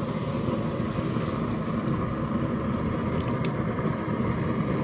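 Steady low roar of the stove's burner flame under a pot of simmering curry, with a few quick metal clicks of the spoon against the aluminium pot about three seconds in.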